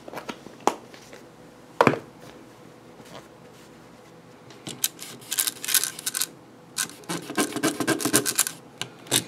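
Alcohol wipe being fetched and handled: a couple of sharp knocks, then, from about the middle on, dense irregular crinkling and scratching of the wipe and its packet as it is opened and rubbed.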